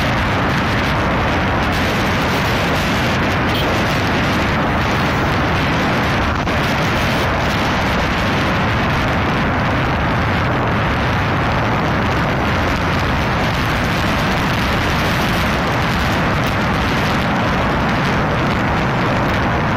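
Steady rush of wind buffeting the microphone, mixed with the running of a motorcycle being ridden along a road.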